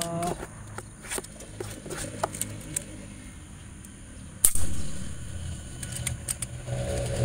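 A single shot from an Omen Sprint X PCP air rifle about four and a half seconds in: one sharp crack, the loudest sound here, after a few light clicks of handling the rifle.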